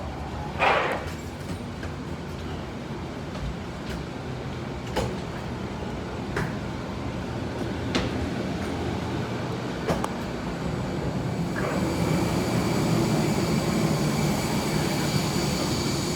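Steady hum of an airliner on the ground during boarding, with scattered knocks and clunks every second or two. About twelve seconds in the hum grows louder and a steady high whine joins it.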